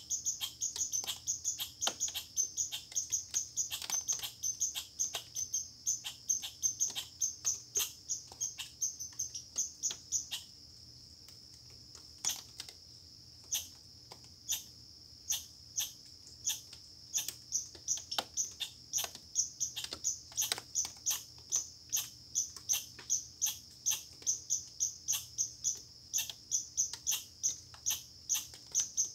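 A squirrel calling: a long run of short, sharp chirps, about two to three a second, broken by a pause of a second or two about a third of the way through.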